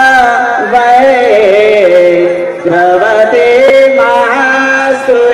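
Indian devotional music: a single melody of long held notes that slide from one pitch to the next.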